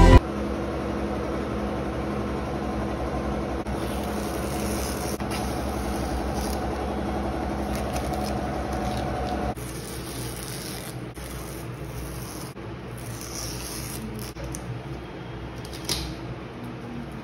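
Steady low machine-like room hum that steps down to a quieter hum about halfway through, with one short click near the end.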